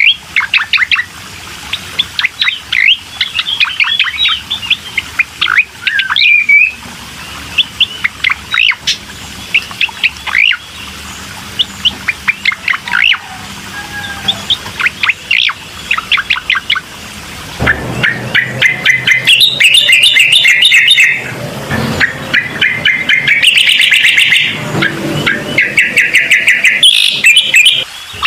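Cucak koreng songbird singing: quick, sharp chirps and short whistled notes, then from about two-thirds of the way in, long, loud, rapid trills repeated in blocks.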